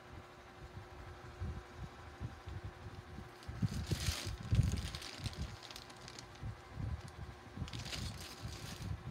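Hands handling things on a bed with soft thumps and rustling, and two short bursts of crinkling plastic, about four seconds in and near the end, as the black plastic courier mailer bag is moved.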